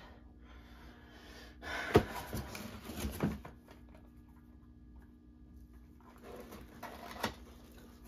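Unpacking noise from a ceiling fan box: rustling of styrofoam and cardboard packaging with a sharp knock about two seconds in, a couple more knocks, a quiet pause, then more rustling and a click near the end as small boxes are lifted out.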